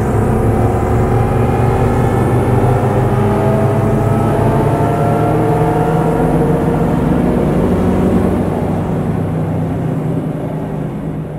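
Synthesized horror sound effect: a loud, low droning hum with several tones slowly gliding upward above it. It begins fading out about eight seconds in.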